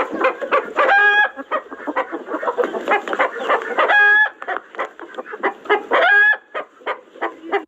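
A flock of chickens clucking busily, with three louder, short squawking calls about a second in, around four seconds in, and around six seconds in.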